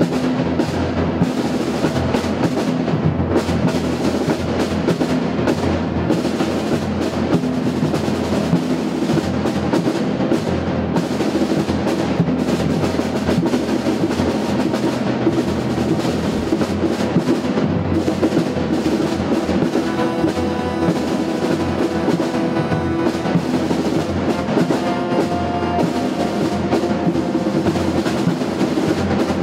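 Orchestra and percussion ensemble playing live: dense, rapid drum strikes over held orchestral notes.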